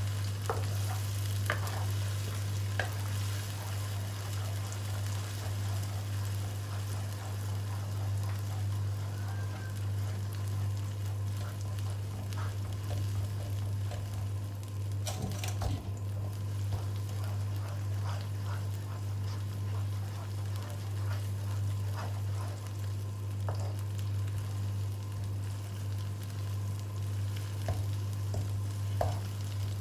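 Sambal chili paste sizzling and frying in oil in a wok, while a wooden spatula stirs it with scattered scrapes and taps against the pan, one a little louder about halfway through. A steady low hum runs underneath.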